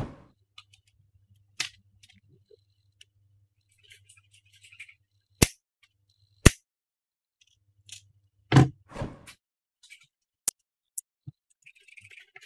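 Scattered sharp clicks and snips of a hand cutter and small parts being handled on a wooden tabletop, over a faint steady low hum.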